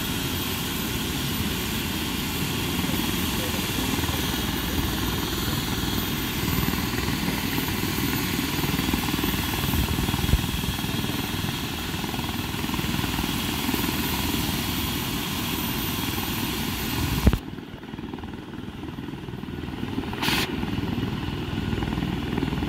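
Air ambulance helicopter running on the ground: a steady turbine whine over rotor and engine noise. A sharp knock comes about three-quarters of the way through, after which the high whine drops away and the sound is quieter.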